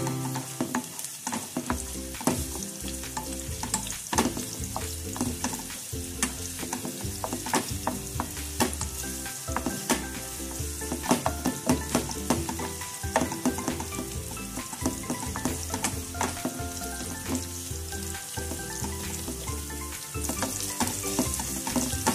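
Sliced onions sizzling in hot oil in a nonstick frying pan while being sautéed. A wooden spatula stirs them, scraping and tapping against the pan again and again.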